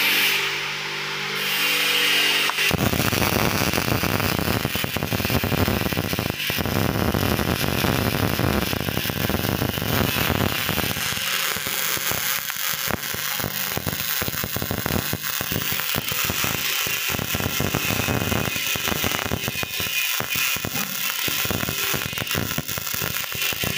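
MIG welding arc crackling and sputtering steadily, starting about three seconds in and running on without a break.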